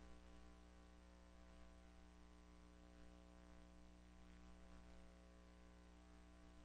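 Near silence: a faint steady electrical hum with hiss, no sound from the film itself.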